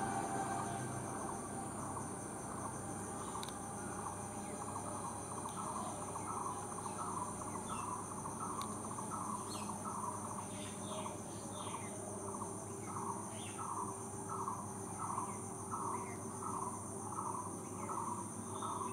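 Insects droning steadily at a high pitch, with a bird repeating a short note at an even pace, about three times every two seconds. Scattered brief chirps come in around the middle.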